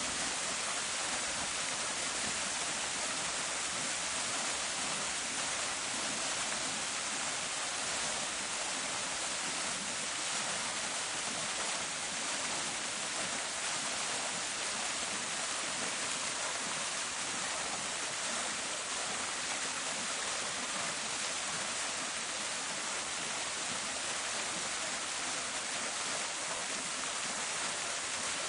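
Park fountain: water splashing steadily into its basin, a continuous even hiss with little low rumble.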